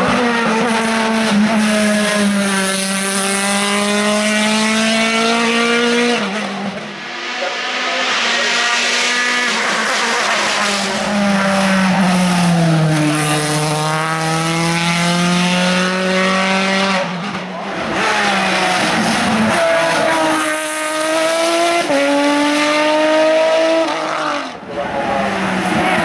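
Hill-climb racing cars, an open-wheel single-seater and a sports prototype, driving past one after another with high-revving engines. The pitch climbs and drops with gear changes, and the sound cuts abruptly between passes several times.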